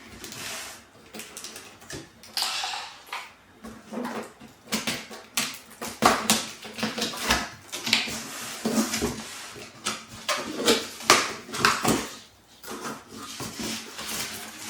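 Cardboard box being opened and its packed contents handled: a run of irregular knocks, scrapes and rustling of cardboard and packaging.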